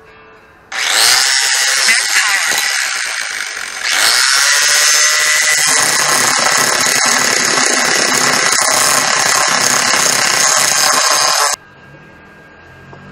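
Handheld electric angle grinder grinding metal. It starts suddenly, eases off a little around three seconds in, runs steadily again, and stops abruptly near the end.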